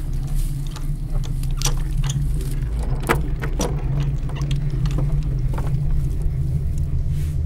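Key turning in an old rusty padlock and the chain clinking against it, a series of small sharp metallic clicks and rattles over a steady low drone.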